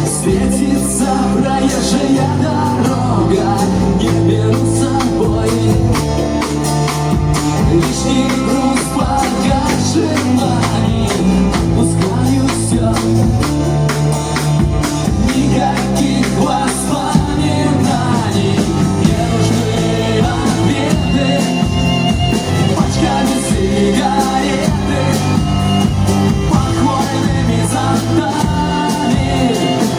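A rock band playing live: a singer over guitar and bass, with a steady drum beat.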